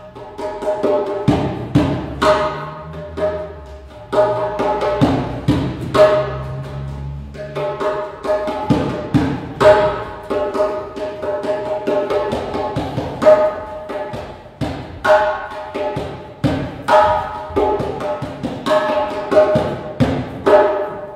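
Djembe played by hand in a fast, continuous rhythm of sharp strikes, each ringing briefly.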